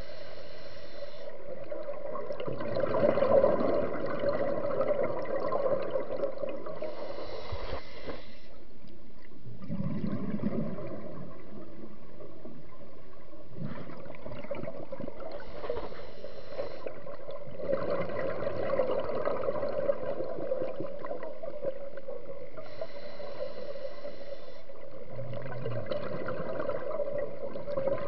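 Scuba diver breathing through a regulator, heard underwater: a short hiss on each inhale, then a longer bubbling gurgle of exhaled air, repeating about every eight seconds over a steady low hum.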